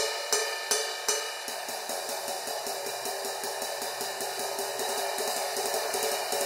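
Vintage 1960s Paiste-made Super Switzerland 18-inch crash ride with copper rivets, played with a drumstick. It is paper thin and trashy, and the rivets sizzle. A few evenly spaced strokes give way, about a second and a half in, to a quick ride pattern that builds into a continuous wash.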